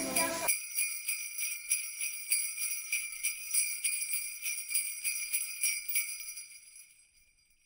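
Jingle bells shaken in a steady rhythm, about three shakes a second, fading out near the end.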